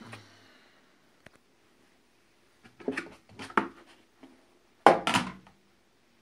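Hard plastic toolbox tray being lifted out and handled against the box. There are a few short knocks and rattles about three seconds in, and a louder plastic clatter about five seconds in.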